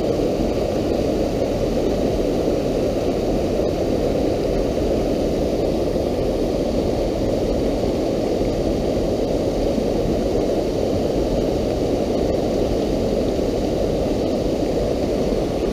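Steady rushing of a fast, shallow stream running in whitewater over rocks.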